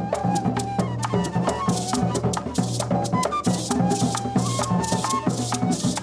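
Instrumental gaita music: a gaita flute plays a short, sliding melody over fast, steady maraca shaking and drum beats.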